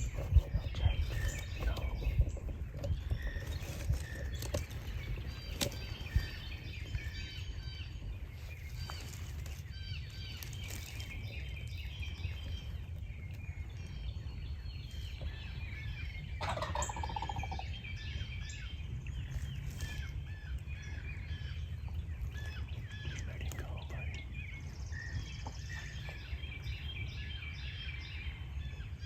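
A wild turkey gobbles once, clearly, about two-thirds of the way through. Small songbirds chirp throughout over a low outdoor rumble.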